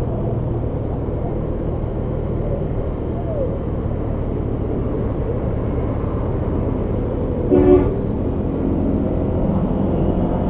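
Steady engine, wind and road noise of a motorcycle ride, heard from the rider's own camera. A vehicle horn gives one short toot about seven and a half seconds in.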